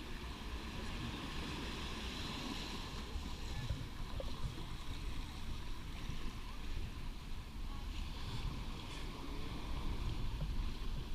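Wind rumbling on a GoPro's microphone over a steady wash of beach surf ambience.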